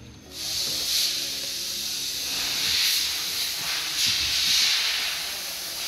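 A steady high hiss that starts abruptly about a third of a second in and swells and eases a few times.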